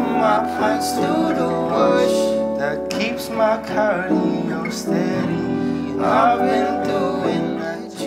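Small live band playing a slow piece together: upright piano chords with acoustic guitars strumming and picking.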